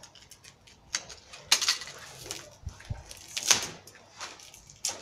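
Packaging being cut and torn off a bundle of rods by hand: short rasping rips of wrapping and tape among softer rustling and clicks, the loudest rips about one and a half and three and a half seconds in.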